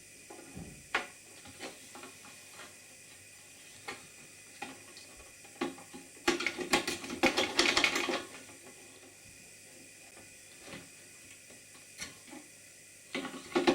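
Small metal parts of a clamp-on straight edge's cam lever and split pin being worked by hand: scattered light clicks, with a dense burst of rapid clicking and clatter about six to eight seconds in and another short cluster near the end.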